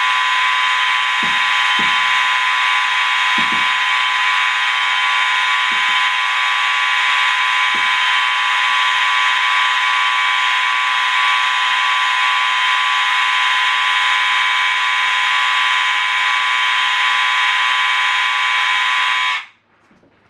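Nineteen fire alarm appliances sounding together, triggered from a pull station: a loud, steady, dense din of many overlapping alarm tones. It cuts off suddenly near the end.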